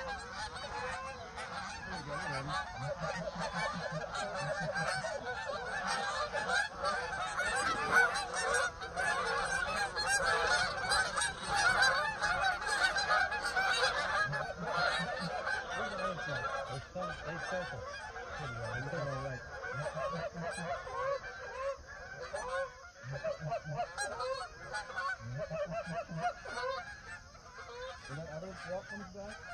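A flock of Canada geese honking, many calls overlapping at once, busiest around the middle and thinning out toward the end.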